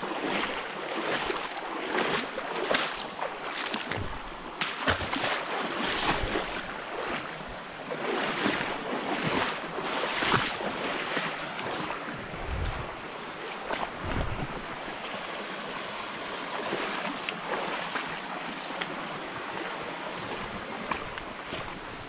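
Footsteps wading and splashing through a shallow, rocky stream, a splash about every second, over the rush of the flowing water. The splashing thins out in the second half, leaving steadier water noise.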